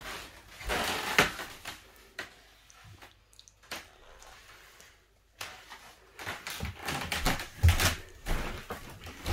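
Irregular taps and knocks of hands and feet on bare wooden floorboards as a child moves along on all fours. The taps are busier at the start and again near the end, with a quieter stretch in the middle.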